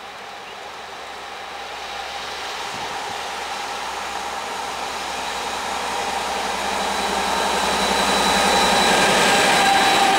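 M62 diesel locomotive, with its two-stroke V12 engine working hard, approaching with a loaded coal train and growing steadily louder, with a steady high whine over the engine noise. Near the end the locomotives reach and pass the listener, and the wagons begin rolling by.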